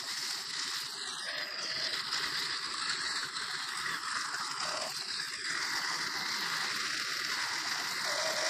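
Stihl FS90R string trimmer cutting grass: a steady high hiss of the line whipping through the grass, with little of the engine's low tone.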